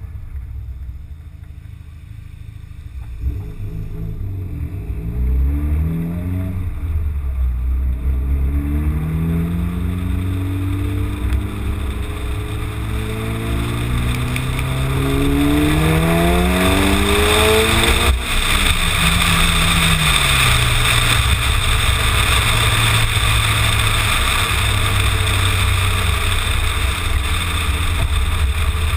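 Mitsubishi Lancer Evolution's turbocharged four-cylinder engine pulling away and accelerating through the gears, its pitch climbing in several rising sweeps. About two-thirds of the way in the pitch drops at a shift, and the engine settles into a steady cruise. Wind and road noise rise on the outside-mounted microphone as the speed builds.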